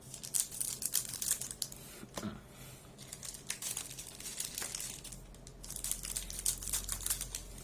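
Foil wrapper of a trading-card pack crinkling and crackling as it is cut open, in many short sharp crackles.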